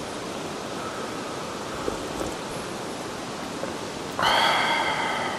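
Steady rushing of a mountain stream. About four seconds in comes a brief tonal sound that fades out over about a second.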